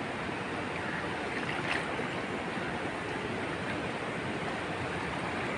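Steady rushing of shallow river water, even throughout, with a faint light tap about two seconds in.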